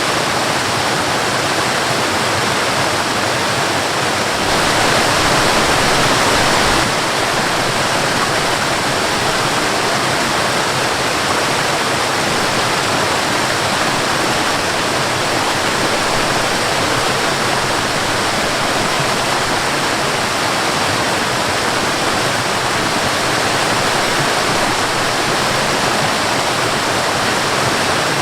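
Waterfall rushing steadily, a dense even roar of falling water, swelling slightly for a couple of seconds about five seconds in.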